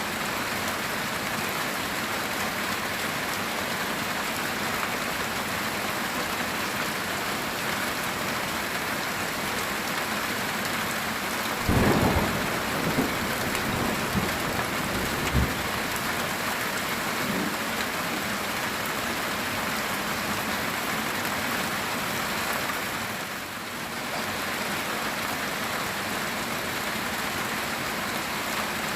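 Heavy rain falling steadily on a metal tin roof, with a thunderclap about twelve seconds in followed by a few smaller rumbles and one short sharp crack.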